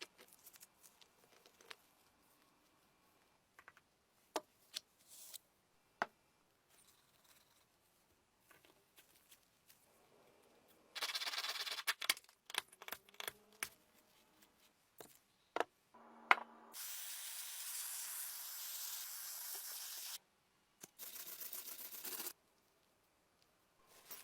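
Small clicks and taps of parts being handled, then pressurised spray hissing in bursts: a short one around the middle, a steady one of about three seconds, and a shorter one near the end.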